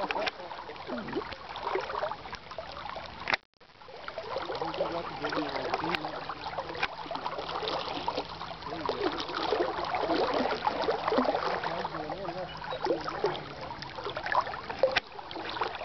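River water flowing and trickling, with faint, indistinct voices. The sound drops out completely for a moment about three and a half seconds in.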